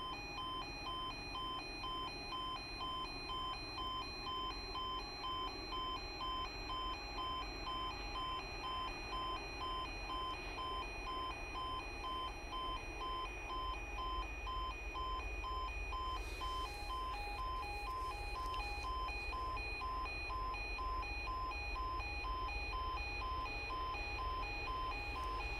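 Level crossing audible warning alarm sounding, a steady stream of pulsing electronic tones, as the crossing is closed for a train. A low rumble builds underneath it toward the end.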